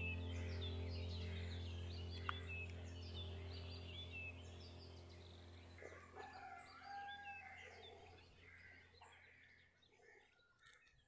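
Birds chirping faintly with short, repeated calls over a steady low drone that fades away through the second half.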